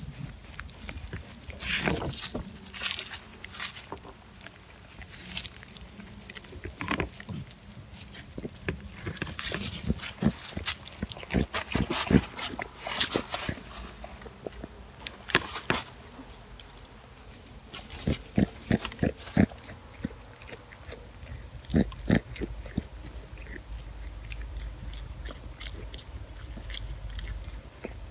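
A goat chewing raw butternut squash: repeated crunching and smacking chews, with a few short odd vocal noises between bites.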